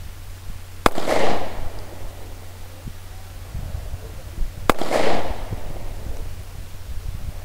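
Two 9mm pistol shots from a Taurus PT 709 Slim firing steel-case ammunition, about four seconds apart. Each is a sharp crack followed by a short echo.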